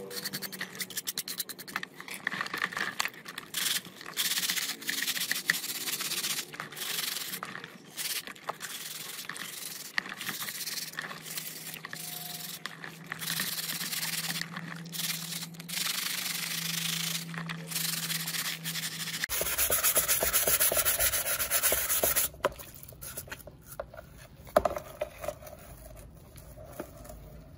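Hand sanding: repeated back-and-forth rubbing strokes with short pauses. About two-thirds of the way through it changes abruptly to a steadier hiss with a low hum and a faint high whine.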